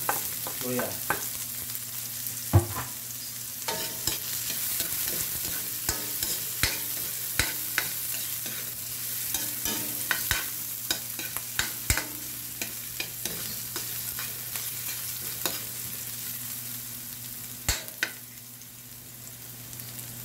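Chopped garlic, onion and ginger sizzling in hot oil in a metal wok, with a spatula stirring, scraping and knocking against the pan many times. The loudest knock comes about two and a half seconds in.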